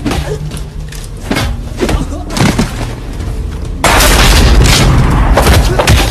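Film battle sound effects: a few sharp thuds, then about four seconds in a sudden loud explosion that rumbles on for about two seconds.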